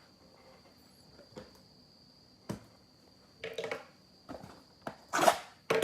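Trading cards and packaging being handled on a table: scattered light clicks and rustles, with a louder rustle about five seconds in. A faint steady high whine sits underneath.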